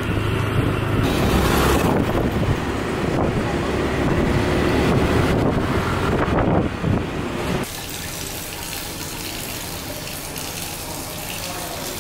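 Street traffic: scooter and car engines passing, one rising and falling in pitch as it goes by. A little under eight seconds in it cuts suddenly to a steady, quieter rush of running tap water.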